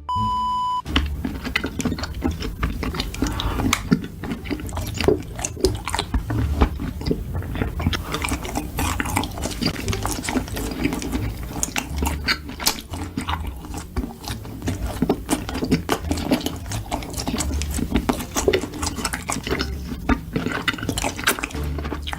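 Close-miked eating: chewing with many small clicks and smacks throughout. A short steady beep sounds right at the start.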